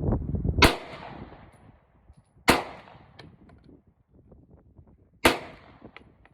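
Three shots from a Ruger Security-9 9mm pistol fired slowly, about two to three seconds apart, each a sharp crack with a short echoing tail.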